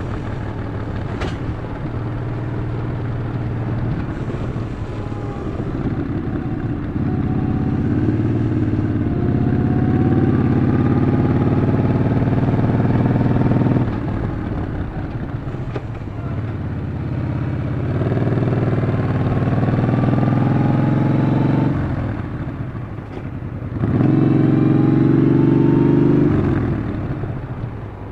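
Yamaha XV950 (Bolt) V-twin engine running while riding, the throttle opening and closing: the engine note grows louder and rises in pitch three times, and eases off in between.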